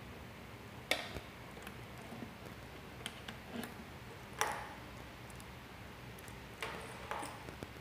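Patch-cord plugs being pushed into and handled in the sockets of an electronics trainer panel: about six sharp clicks, spaced irregularly, the loudest about halfway through.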